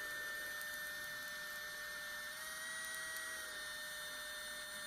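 3Doodler 2.0 3D pen's small filament-feed motor running steadily with a thin whine, pushing melted ABS plastic out of the hot tip.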